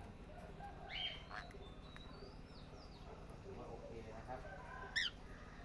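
Pet parrots calling: a few short high calls, then thin gliding whistles, and one sharp, loud call about five seconds in.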